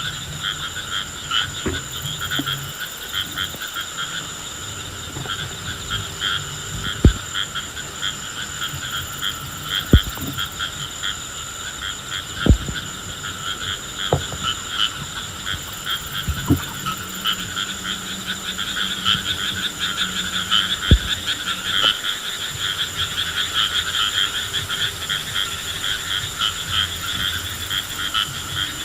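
Chorus of frogs croaking on and on in rapid pulses, with a thin steady high tone above it. About six sharp knocks stand out over the stretch, the loudest sounds in it.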